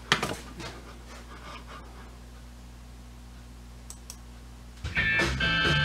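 A sharp click followed by a few lighter clicks, then a low steady hum, and about five seconds in music starts playing loudly through the recapped Special Edition Electronics A275 amplifier and its speakers, the amplifier working after the repair.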